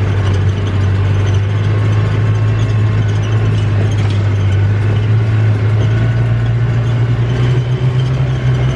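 Vehicle engine running steadily, a low drone that climbs slightly in pitch near the end, with a steady rushing noise over it.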